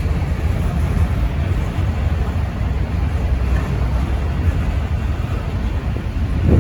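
Wind buffeting the microphone over the steady low rumble of a slow freight train rolling past.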